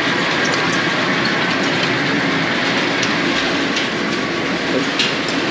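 Potato sorting machine running: a loud, steady mechanical rattle with a few sharper knocks.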